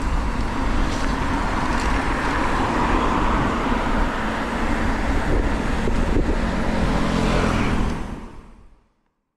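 Steady rushing noise of a hardtail mountain bike rolling along beside a road: wind over the camera's foam cover and tyre noise, with car traffic alongside and a few light clicks from the bike. It fades out about eight seconds in.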